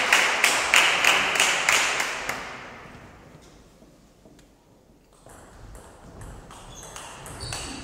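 Spectators clapping in a steady rhythm, about three claps a second, fading out over the first two seconds. After a short hush, a table tennis rally begins about five seconds in: the ball ticking off bats and table in quick succession.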